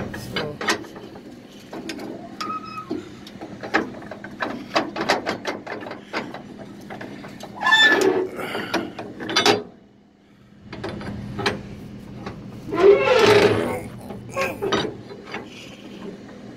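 Flatbed strap winch being cranked tight with a winch bar: irregular clicks of the ratchet pawl as the drum turns, with two louder rattling scrapes about eight and thirteen seconds in.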